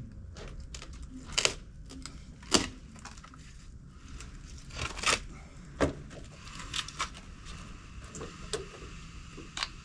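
Scattered sharp clicks and knocks, about a dozen, spread irregularly; the loudest come about one and a half, two and a half, five and six seconds in.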